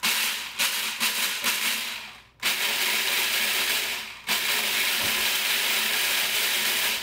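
Electric food processor pulsed three times, a couple of seconds each, chopping hard pretzel sticks into coarse crumbs; in the first burst there are sharp clicks of the pieces hitting the bowl.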